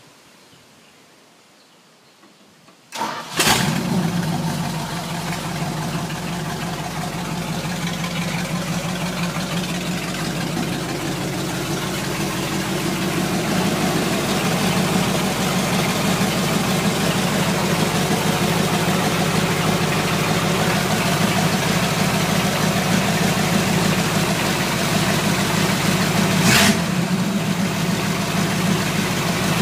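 Freshly rebuilt carbureted V8 cranks and fires about three seconds in, then settles into a steady idle. A brief clack comes near the end. The owner says the engine is running a little slow on timing.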